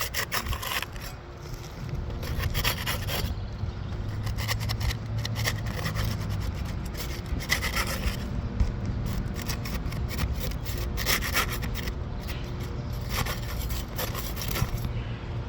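Flat pry tool scraping and prying under 3-tab asphalt roof shingles to lift them off their staples, in irregular scraping strokes that come and go.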